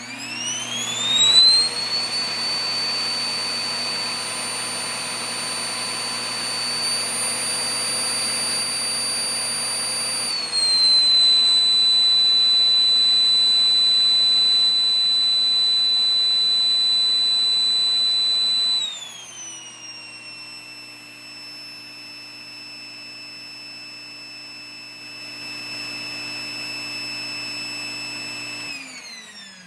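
Sharp EC-BT5 vacuum cleaner motor spinning up into a high, steady whine. About ten seconds in it steps up to a louder setting, and near nineteen seconds it drops to a quieter, lower-pitched setting. Near the end it winds down with a falling whine as it is switched off.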